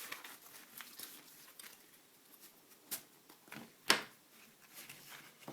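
Handling noise from gear and a nylon backpack pouch: light rustling with small clicks and taps. The sharpest click comes about four seconds in.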